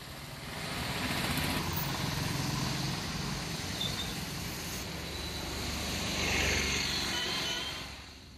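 Street traffic in rain: the hiss of rain and tyres on a wet road over the engines of passing vehicles, swelling about six seconds in and fading out near the end.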